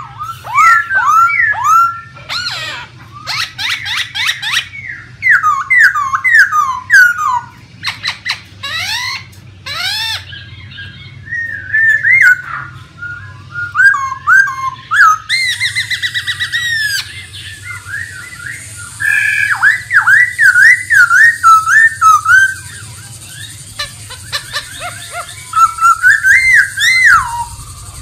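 Black-throated laughingthrush singing: loud, varied whistled phrases that slide up and down, mixed with quick sharp notes, in repeated bursts with short pauses between them.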